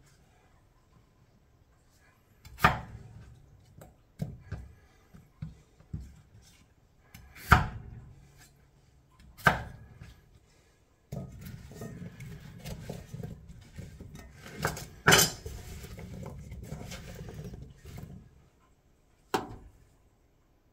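Knife chopping potatoes on a cutting board: a handful of sharp, irregularly spaced knocks of the blade hitting the board, with lighter taps between them. A steady low rumble comes in about halfway and stops shortly before the last knock.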